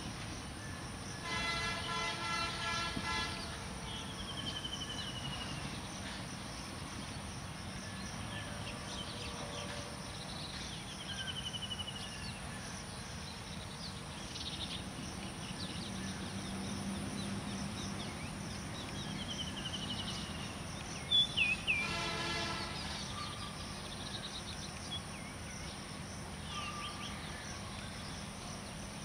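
Diesel locomotive horn sounding twice: a blast of about two seconds near the start and a shorter one about 22 s in. Between them birds call in short falling trills over a steady outdoor hiss, and a brief sharp sound just before the second horn blast is the loudest moment.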